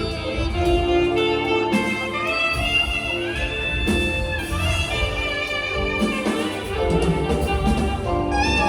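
Two saxophones playing a melody in duet over a live band accompaniment, with long held notes and smooth slides between them.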